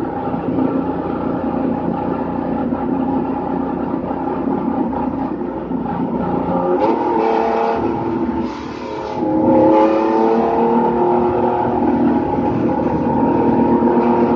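Race car engine heard from inside the cockpit, running steadily at first and then accelerating hard from about halfway: the pitch climbs, drops briefly at a gear change, and climbs again.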